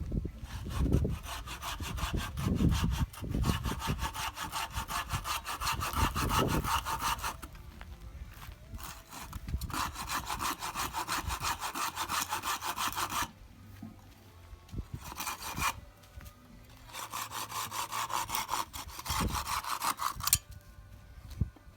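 Handsaw cutting wood in quick back-and-forth strokes, in several runs separated by short pauses.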